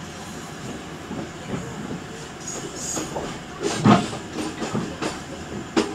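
Local commuter train pulling out of a station, heard from inside the carriage: a steady rumble with the wheels clattering and knocking over the track joints, and a loud clunk about four seconds in and another near the end.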